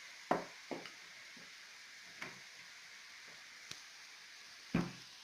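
Scattered knocks and taps on a kitchen work surface while small pieces of dough are flattened into rounds. The two loudest come just after the start and near the end, with a few fainter taps between them.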